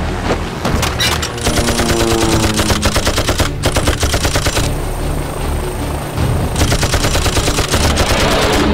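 Heavy machine gun firing rapid sustained bursts, starting about a second and a half in with a brief break midway, with a music score underneath.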